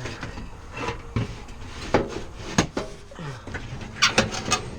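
Metal knocks and clunks as an ECM blower motor is worked up into the blower assembly by hand: a sharp knock about two seconds in, another just after, and a quick run of clanks near the end.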